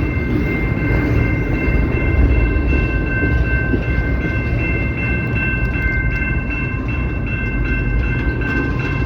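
A CPKC locomotive's multi-chime air horn sounding in one long, steady blast, several notes held together as a chord, over the deep rumble of the passing train.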